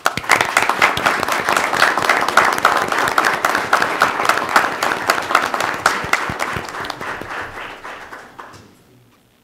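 People applauding: a dense run of hand claps that starts suddenly and fades away over its last two seconds.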